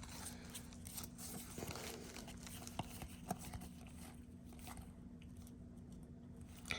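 Faint handling of trading cards: a few light clicks and soft rustles as cards are flipped through one by one, over a low steady hum.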